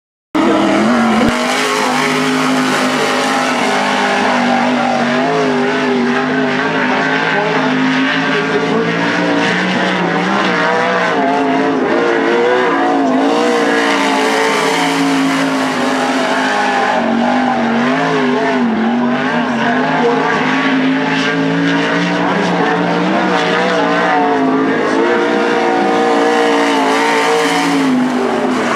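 Winged limited sprint car's engine running hard on a dirt oval during a qualifying lap, cutting in abruptly just after the start. Its pitch rises and falls again and again through the laps.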